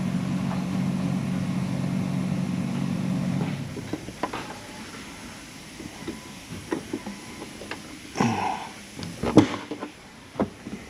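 Infiniti car engine idling with a steady hum, switched off about three and a half seconds in, followed by scattered clicks and knocks with one louder thump near the end.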